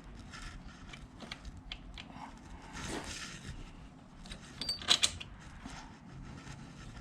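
Small metal hardware being handled: light clicks and clinks of a washer and bolt being worked onto a motorcycle footpeg mount, with a brief rustle about three seconds in and a sharper metallic clink about five seconds in.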